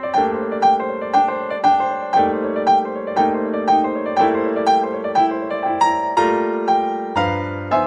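Calm instrumental background music: a slow melody of struck notes that ring and fade, about two a second, over held lower tones.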